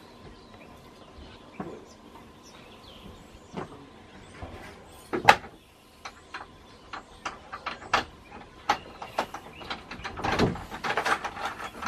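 Scattered sharp knocks and clicks of a door and its latch being handled, the loudest knock about five seconds in, with a denser clatter near the end as the door is worked open.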